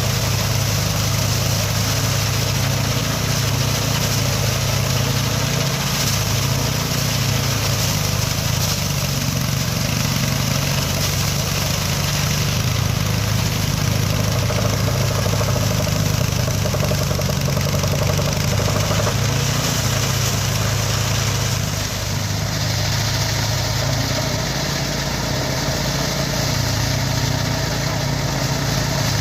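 Small engine-driven mini rice threshing machine running steadily, with a low engine hum and a steady hiss above it; the tone shifts slightly about three-quarters of the way through.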